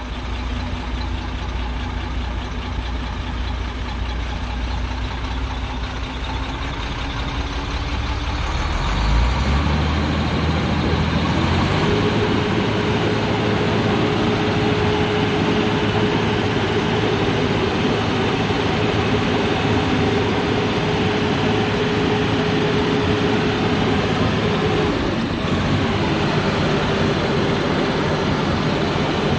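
Shacman F3000 8x4 dump truck's diesel engine idling, then speeding up about nine seconds in as the tipper's hydraulics are engaged. A steady whine rides over the raised engine speed while the dump body is lifted, and it drops slightly near the end.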